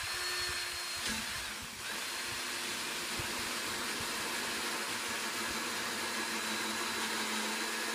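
Cordless drill on low speed driving a 1¾-inch hole saw through the wall of a plastic five-gallon bucket: a steady motor whine over the hiss of the teeth cutting plastic, easing briefly about two seconds in.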